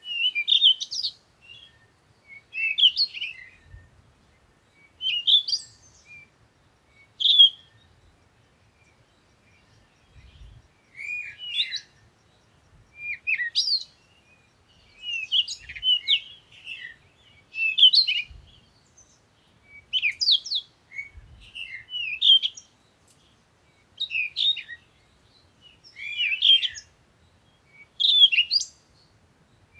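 A songbird singing short chirping phrases, about one every two seconds, with brief silences between them.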